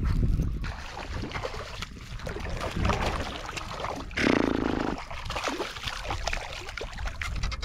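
A hooked bass thrashing and jumping at the surface beside a kayak, splashing water in irregular bursts, over a low rumble of wind on the microphone.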